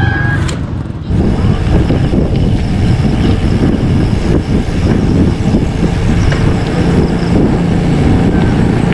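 Wind buffeting the microphone during a bicycle ride: a loud, steady low rumble that dips briefly about a second in.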